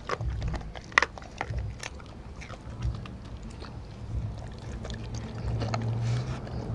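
Doberman eating a raw-food meal from a glass dish close to the microphone: chewing with many sharp clicks and cracks, the loudest about a second in. A low hum swells near the end.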